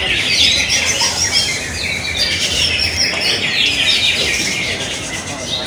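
Several greater green leafbirds (cucak ijo) singing at once, a dense, continuous chorus of rapid, overlapping chirps and whistles.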